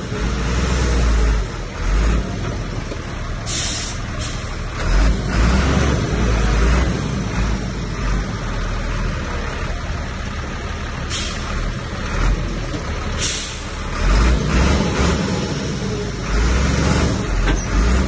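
Heavy diesel engine of a Komatsu bulldozer working, running steadily with surges in its low rumble and several short hisses.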